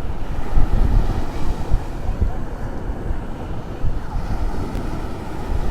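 Wind gusting over the microphone with a low, uneven rumble, and ocean surf washing behind it.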